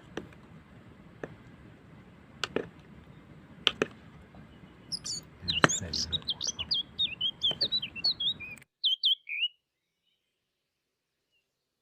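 A bird singing a quick run of high, wavering chirps for about four seconds over a faint hiss, after a few sharp clicks or taps. The sound cuts off abruptly well before the end.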